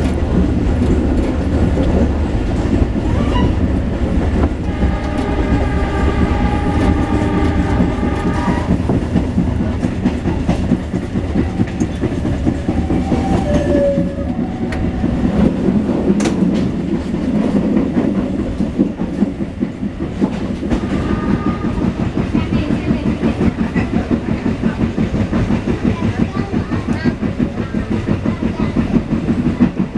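Logawa passenger train running along the track, a steady rumble with wheels clattering over the rail joints. About four and a half seconds in, a train horn sounds for about four seconds.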